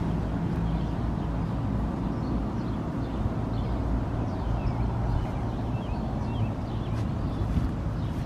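A steady low engine hum, with small birds chirping in short high notes through the middle and latter part.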